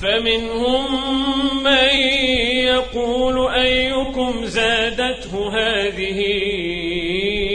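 A man reciting the Quran in the melodic tajweed style, one voice holding long drawn-out notes with a wavering ornamented pitch and a few short breaks.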